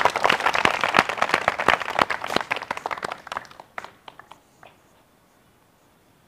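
Crowd applauding with dense clapping that thins out after about three seconds to a few scattered claps, then stops.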